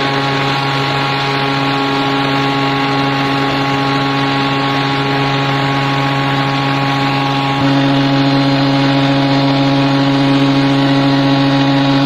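Spindle moulder running steadily: a constant motor hum with a thin whine above it and no separate cutting strokes. It gets a little louder about two-thirds of the way through.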